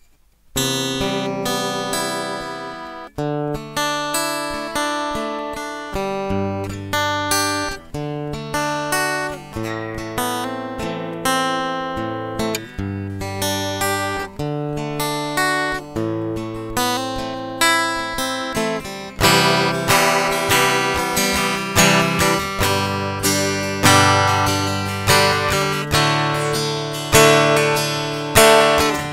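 Acoustic-electric guitar, strung with electric-guitar strings, strumming a run of chords; the strumming gets louder about two-thirds of the way through.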